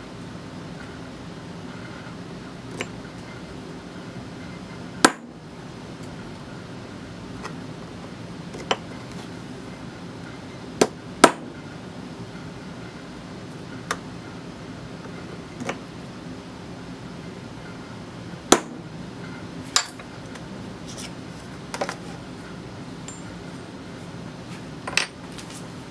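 A small hammer striking a center punch on an aluminium adapter through a plastic template: about a dozen sharp metallic taps at uneven intervals, some harder than others, over a steady low hum.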